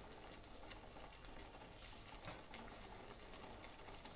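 A pot of paneer and pea curry bubbling on the heat: a steady hiss with faint scattered pops.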